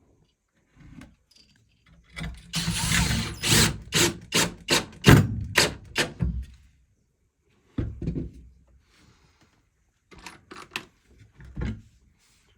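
A rapid run of sharp knocks, about three a second, following a short burst of noise, with a few more scattered knocks later.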